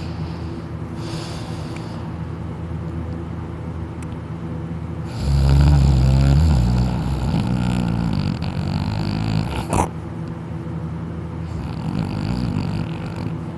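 A person snoring while asleep on his back with his mouth open. A loud snore starts about five seconds in and fades over a few seconds, a sharp click follows near ten seconds, and a softer snore comes near the end, all over a steady low hum.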